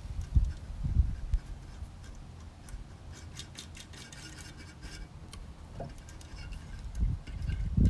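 Light, fairly regular clicking of small hand tools working the screws of a gauge cluster, with a few low thumps near the start and a low rumble building near the end.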